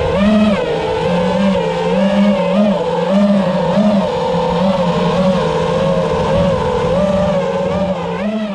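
A 5-inch FPV freestyle drone's motors and propellers whining, the pitch swinging up and down quickly and repeatedly with the throttle.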